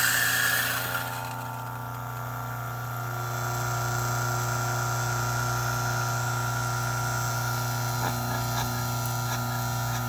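A Turin DF64 flat-burr coffee grinder. It is grinding a dose of already-ground coffee for about the first second, then the motor spins on with a steady hum as the burrs run empty. A few faint ticks come near the end.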